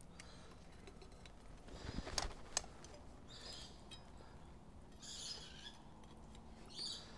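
Steel pliers and tongs clinking against a small steel bar as it is bent by hand, with a couple of sharp metal clicks about two seconds in. A few short higher-pitched sounds follow later.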